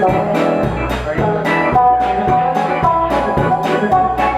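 Live band playing an instrumental passage: a lead electric guitar over bass and drum kit, with a steady beat of about two drum hits a second.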